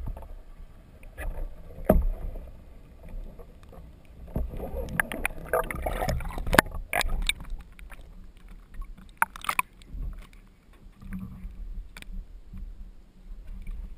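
Muffled knocks and bumps on an underwater camera housing, with water sloshing and splashing as the camera is pulled up through the water and breaks the surface about halfway through.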